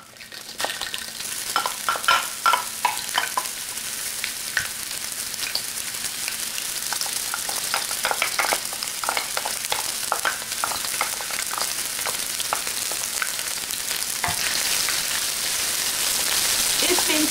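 Red onion and minced garlic sizzling as they hit hot oil in a stainless-steel electric wok on high heat, then stirred with a wooden spatula. The sizzle starts within the first second, with a run of sharp taps and clinks over the next few seconds, and grows a little louder near the end.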